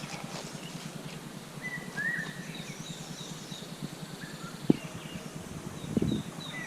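Birds calling: a run of short, high, down-slurred notes repeating a few times a second, with a lower arched call about two seconds in. A sharp click comes a little before the five-second mark, and a brief cluster of knocks about six seconds in.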